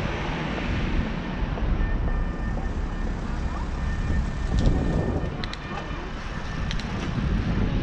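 Motorcycle riding through town: wind rushing over the on-board microphone with the bike's engine running underneath. A few light ticks come in the second half.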